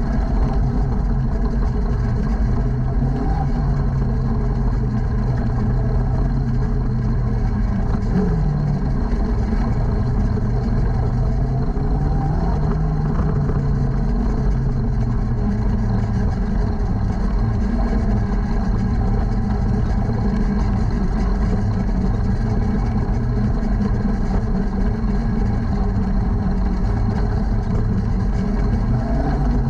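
On-board sound of a junior sprint car's engine running steadily at low speed, its pitch rising and falling briefly a couple of times near the middle as the throttle is worked.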